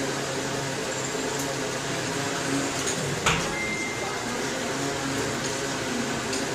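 Bicycle spinning on indoor training rollers: a steady whirring hum of the tyres on the roller drums, with one sharp click a little over three seconds in.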